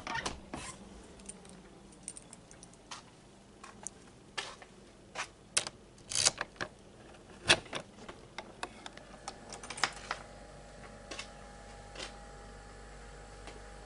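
Scattered sharp clicks and knocks of a wooden shed door being unlocked and opened by hand, with a small metallic rattle like keys. From about nine seconds in, a faint steady hum sets in underneath.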